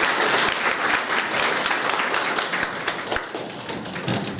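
Audience applauding, a dense patter of hand claps that slowly dies down near the end.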